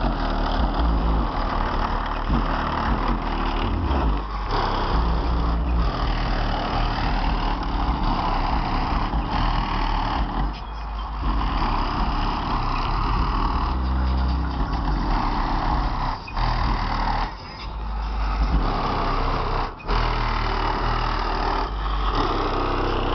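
Bass-heavy music played very loud through trunk-mounted subwoofers in a Buick Regal, heard from outside the car: deep bass notes stepping in pitch, with a dense distorted buzz over them and a few brief dropouts.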